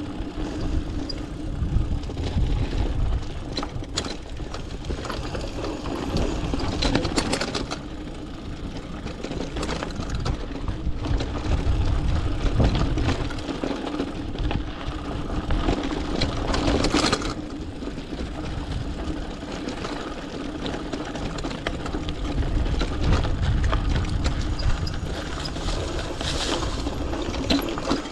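Mountain bike riding over a loose dirt and sand trail: continuous tyre and drivetrain noise with a low rumble, and a few sharp knocks and rattles from bumps along the way.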